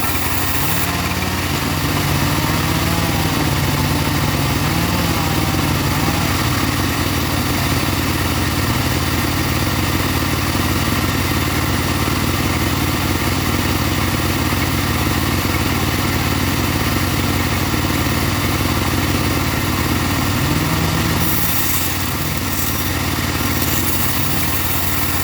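Engine-driven portable bandsaw mill running steadily while sawing teak, a constant mechanical drone with a slight wavering in pitch early on and near the end.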